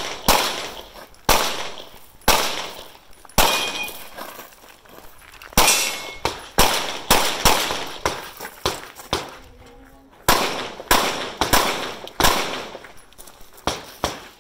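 Handgun shots fired in a timed practical-shooting stage: about fifteen shots, mostly in quick pairs and short strings, with pauses while the shooter moves between positions. Each shot has a short echo tail.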